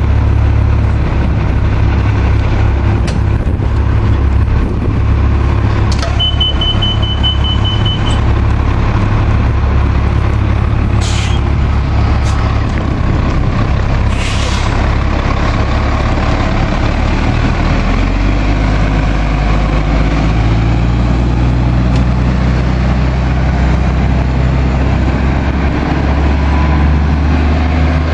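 Diesel city buses idling with a steady low drone whose note shifts about eighteen seconds in. There are short bursts of air hiss about eleven and fourteen seconds in, and a brief high beeping about six seconds in.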